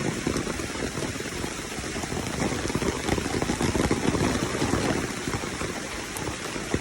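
Steady rushing, splashing water.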